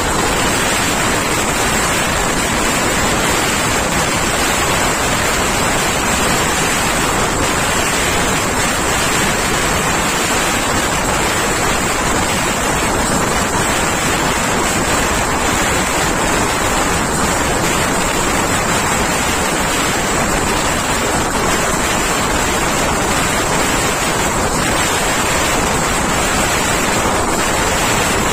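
Express passenger train running at speed: a steady, unbroken rush of running and wind noise, with wind buffeting the microphone.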